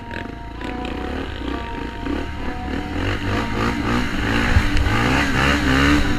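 Enduro motorcycle engine running and revving, its pitch wavering up and down as the throttle changes. It grows louder through the second half.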